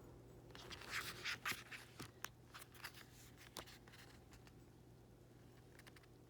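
Faint rustling and soft clicks of glossy photobook pages being handled and turned, mostly in the first four seconds, then near quiet.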